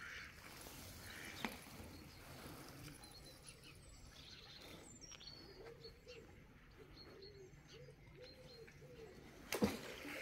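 Faint outdoor birdsong: small birds chirping high, and a pigeon cooing in a repeated low phrase through the second half. A sharp knock near the end is the loudest sound.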